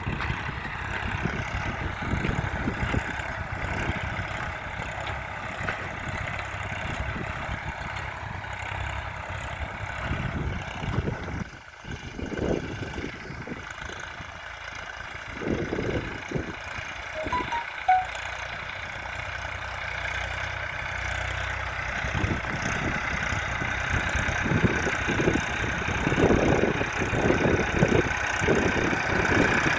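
Massey Ferguson 241 DI tractor's three-cylinder diesel engine running, dipping briefly about twelve seconds in.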